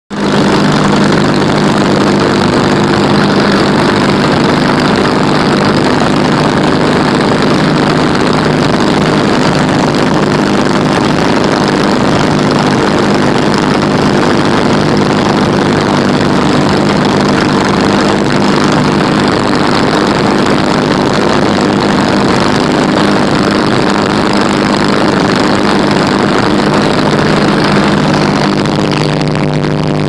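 Single-engine light aircraft's engine and propeller running steadily in flight, with a steady rush of air over the airframe. The engine note shifts slightly near the end.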